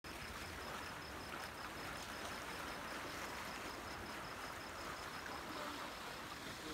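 Steady, soft wash of a calm sea, with a faint high chirp repeating at an even pace through it.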